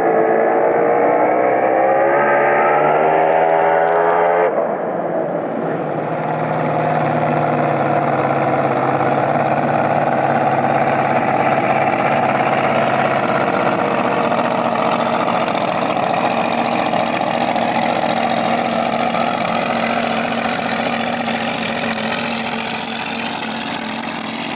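A Top Alcohol flat-bottom drag boat's engine climbing steadily in pitch for the first four and a half seconds. Then it changes abruptly to a loud, steady, noisy engine run that slowly fades near the end.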